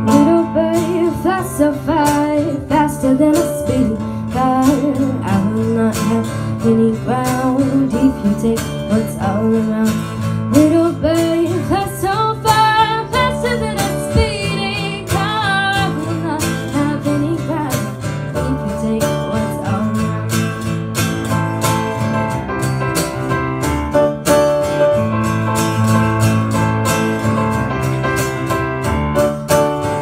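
Live acoustic song on acoustic guitar and keyboard, with a woman singing over the first half; from about halfway the guitar and keyboard carry on with held notes and little or no voice.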